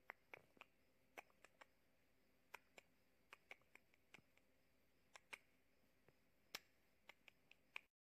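Near silence with faint, irregular small clicks and ticks, about two or three a second, then the sound cuts out completely just before the end.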